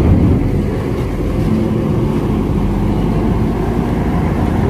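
Diesel engine of a large intercity bus running at low speed, a steady low rumble.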